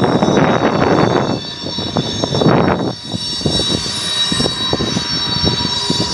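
Wind gusting on the microphone for the first few seconds, then the steady drone of a distant engine with faint ticking and clanking.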